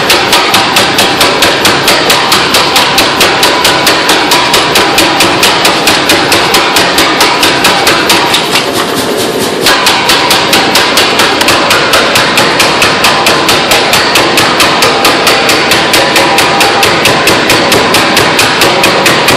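Hammer blows on metal at the forge, in a fast, even rhythm of about four to five strikes a second, with a short pause about nine seconds in.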